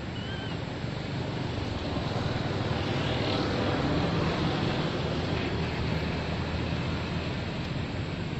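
Steady rushing background noise that swells a little in the middle, with a short high chirp right at the start.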